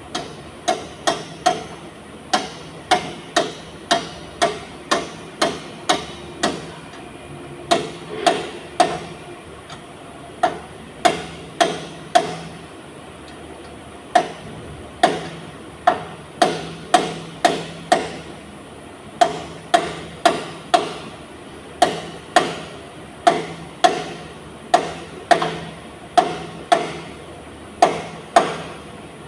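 Hammer pounding on metal during rear-differential work: sharp blows about two a second, each ringing briefly, in runs broken by short pauses.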